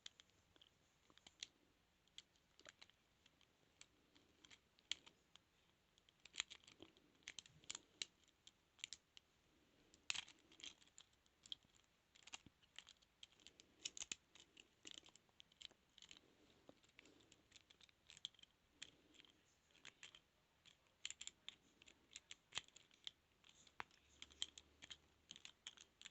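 Faint, irregular small clicks and scratching of a lock pick working the pins inside a transparent practice padlock.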